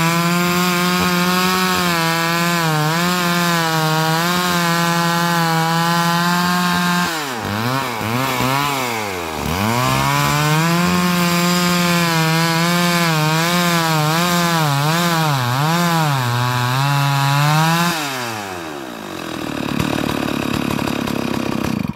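Two-stroke chainsaw running at high revs while ripping a log lengthwise into planks. Its engine pitch sags and recovers a couple of times mid-cut as the bar gets pinched in the kerf by the plank squeezing it. Near the end the engine drops off throttle.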